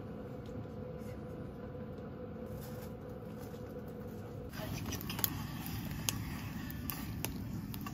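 A steady hum with a faint steady whine, then, from about four and a half seconds in, a wood fire crackling in a small fire pit, with a few sharp pops.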